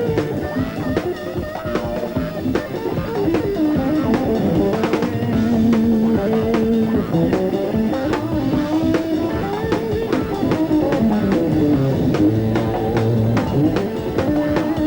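Rock band playing guitar over a full drum kit with a steady beat, with no vocal line heard.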